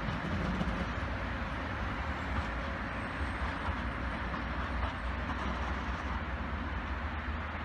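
Class 425 electric multiple unit running away over the station pointwork: a steady rumble of wheels on rail.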